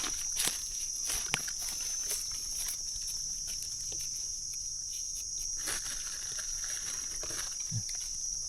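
Insects buzzing in a steady, continuous high-pitched drone, with scattered soft rustles and crackles of footsteps and hands in forest leaf litter.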